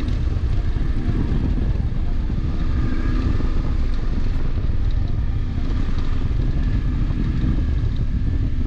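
Motorcycle engine running under way on a dirt road, with steady wind rumble on the microphone.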